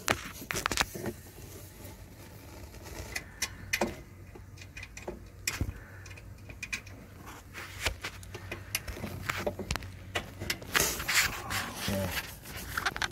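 Scattered light metal clicks and rubbing as a small hitch pin is worked into the hole in a lawn tractor's parking-brake rod, with the rustle of hands moving around the linkage close by.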